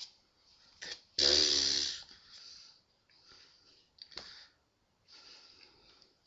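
A man makes a short, loud, breathy throat sound with a low hum in it about a second in. Around it are soft clicks and rustles of his hands moving against each other and his sweater as he signs.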